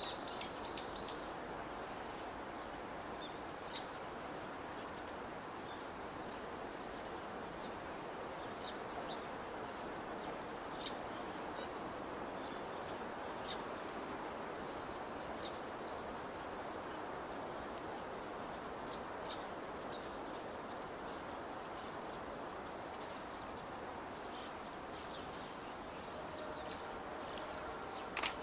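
Small birds chirping now and then over a steady outdoor background hiss. Near the end a faint steady tone comes in, and there is one sharp click just before the end.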